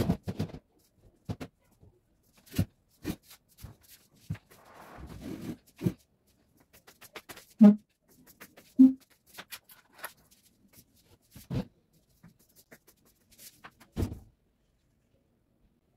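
Scattered knocks, bumps and footsteps as furniture and household items are moved around a small room, with a brief scraping about five seconds in. Two short pitched sounds about a second apart, near the middle, are the loudest moments.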